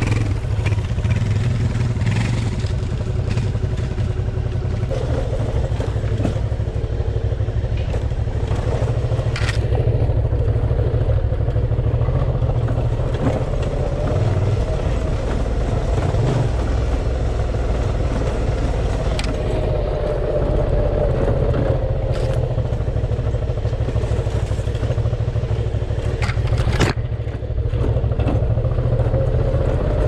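Suzuki V-Strom 650's V-twin engine running at low speed on a rough, rocky dirt trail, with a few sharp knocks as the bike jolts over stones.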